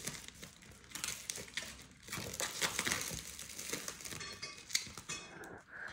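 Packaging rustling and crinkling as it is handled, with a few small clicks and knocks.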